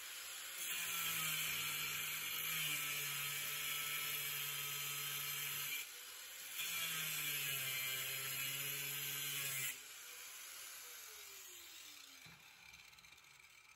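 Angle grinder with a metal cutoff wheel cutting steel: a steady motor whine with a hissing grind, broken briefly about six seconds in. Near the end the grinder is switched off and winds down with a falling whine.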